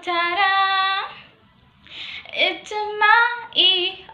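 A woman singing a K-pop song in Korean without accompaniment: one long held note, a short pause for breath, then a run of shorter notes.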